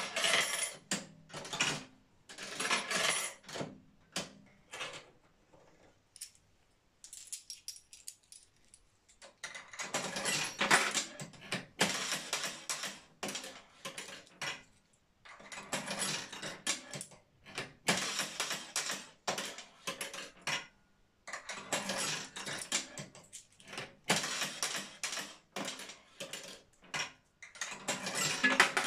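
Old Bryans Elevenses penny slot machine being played: coins dropping in, the lever working and the mechanism clattering. It goes in repeated bursts of metallic clicks and rattles with short pauses between them, and the longest pause comes about six to nine seconds in.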